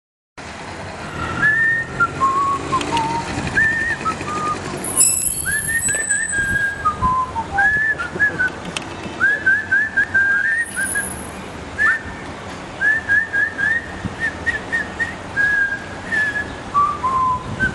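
A tune whistled in short, clear notes, some in quick runs of three or four.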